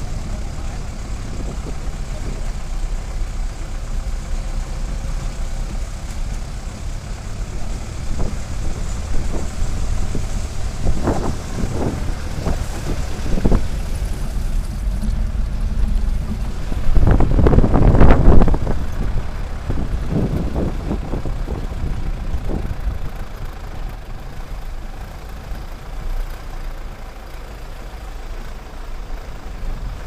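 Vehicle engine running steadily while driving, heard from inside the cab. Louder knocks and rattles come about eleven seconds in, and a louder clattering stretch follows a little later.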